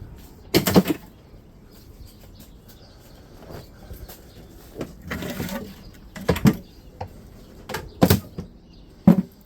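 Parts of a dehumidifier being handled during scrapping: several separate knocks and clunks, with a short scraping sound about five seconds in.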